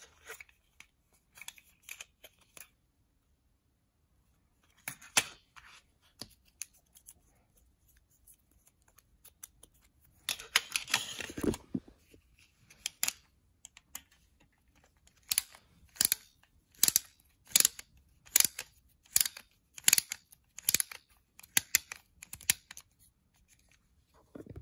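Plastic toy spin-disc launcher gun being handled: scattered clicks, a rattle lasting a couple of seconds about ten seconds in, then a run of about ten sharp plastic clicks, evenly spaced a little under a second apart.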